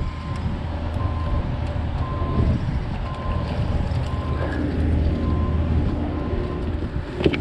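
A reversing alarm beeps about once a second over a steady low rumble of vehicle traffic or machinery. A sharp click comes near the end.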